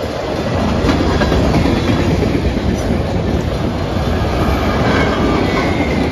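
Freight cars of a Norfolk Southern manifest train (autoracks and covered hoppers) rolling past at close range: a loud, steady rumble of steel wheels on rail with a clickety-clack over the joints and a couple of sharper clanks.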